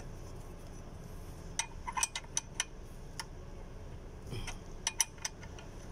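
Light metallic clinks and taps of hand tools and screws on metal parts, in small clusters of several quick knocks, over a steady low hum.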